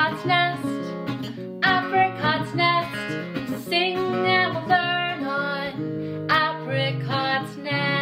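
Acoustic guitar theme song, strummed, with a voice singing over it, ending on a chord that is held and rings on near the end.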